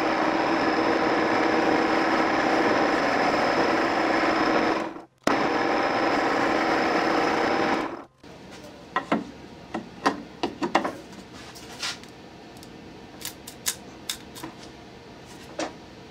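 Metal lathe turning a welded steel pump housing, cutting the weld off its end: a steady machining noise with a high whine, broken briefly about five seconds in, and the lathe stops about eight seconds in. Scattered clanks and knocks follow as the work is handled in the lathe.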